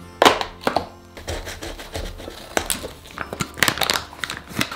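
Cardboard cocoa box handled and opened, and the foil zip-lock pouch of cocoa powder inside crinkled and pulled open: a sharp crack just after the start, then a quick run of crinkles and clicks, loudest near the end. Soft background music under it.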